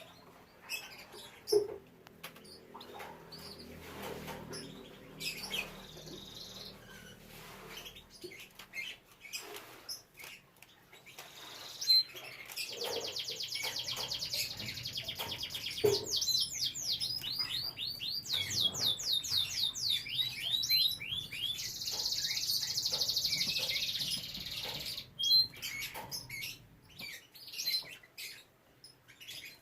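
Domestic canary singing: short scattered chirps and clicks, then a long, continuous song of fast high trills from about twelve seconds in, including a run of quickly repeated falling notes, before it breaks back into scattered chirps.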